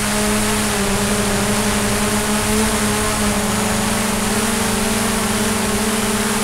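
DJI Mavic quadcopter's propellers and motors running in flight: a steady buzzing hum whose pitch shifts slightly, over a constant hiss.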